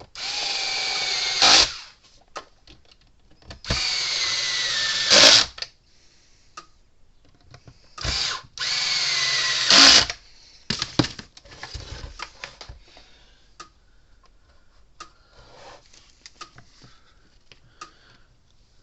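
Power drill-driver running screws in three bursts of about a second and a half, its motor pitch dropping during each. After the third burst come quieter scattered clicks of handling.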